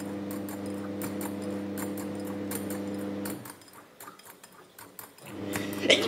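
A manual wire whisk stirring egg batter in a glass bowl, making rapid light clicks and scrapes. Under it runs a steady low hum that cuts out about three seconds in and comes back near the end, where there is a louder sharp clink.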